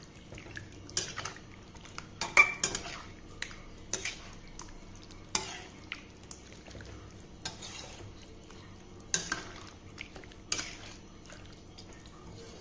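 Metal spatula stirring thick chicken gravy in a metal kadai, scraping and knocking against the pan in irregular strokes every second or two, the loudest a little over two seconds in.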